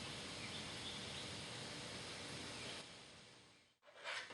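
Faint steady background noise with a few faint high chirps, fading out about three seconds in, then a brief knock near the end.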